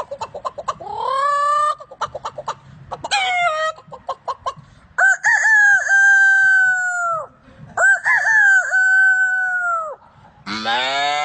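A man imitating a chicken with his voice: quick clucking broken by short rising calls, then two long rooster crows. Near the end he starts a lower, fuller call, the next animal imitation.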